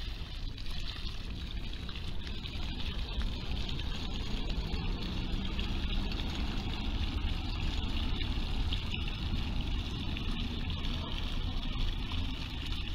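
Small fountain's jets splashing steadily, over a constant low rumble.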